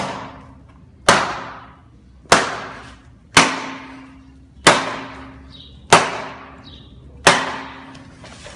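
A baton striking the hard plastic leg armour of a riot-control suit: seven sharp cracks, about one every 1.2 seconds, each with a short ringing tail.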